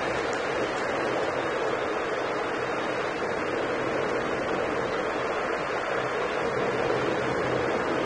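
Steady background hiss with a faint low hum and no voice.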